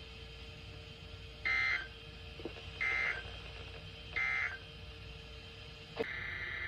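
Three short Emergency Alert System end-of-message (EOM) SAME data bursts, about 1.4 seconds apart, signalling the end of the alert. A click about six seconds in, then a faint steady tone.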